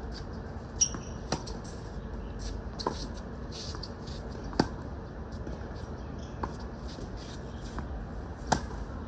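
Tennis ball being hit back and forth on a hard court: sharp clicks of racket strikes and ball bounces every second or two. The three loudest, from the racket nearest, come about four seconds apart, over a steady background hiss.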